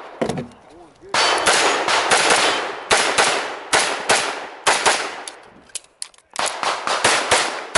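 Rapid semi-automatic pistol fire: well over a dozen shots in quick pairs and strings, each with a ringing echo, with a short break about six seconds in.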